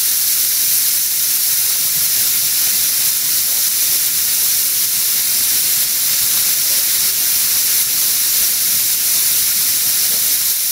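Compressed air hissing steadily from an air compressor's air gun fed through a regulator, blowing a continuous jet of air.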